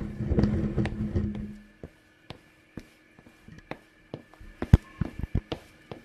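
A rough scraping or rustling noise for about a second and a half, then a run of light taps and a few sharper knocks.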